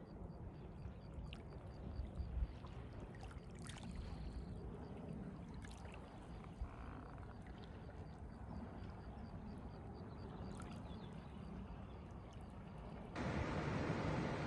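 Small lake waves lapping at the shoreline, with wind rumbling on the microphone. A faint, rapid high ticking runs through, and near the end it changes abruptly to a louder steady rush.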